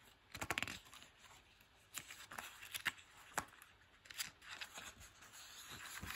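Faint rustling and small ticks of a thin paperback book's paper pages being handled, with a page being turned near the end.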